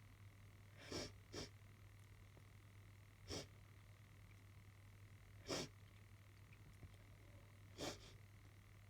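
A person sniffing sharply through the nose five times: two quick sniffs close together, then single sniffs every two seconds or so. It is a runny nose, which the person puts down to hayfever or allergies.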